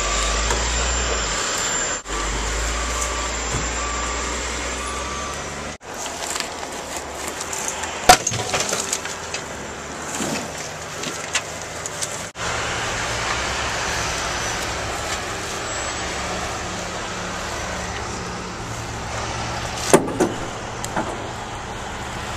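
Landfill compactor and other heavy machinery running with a steady engine rumble, a high beeping repeating about twice a second in the first few seconds. In a middle stretch, knocks and clatter of branches and debris being unloaded from a pickup bed, and one sharp knock near the end.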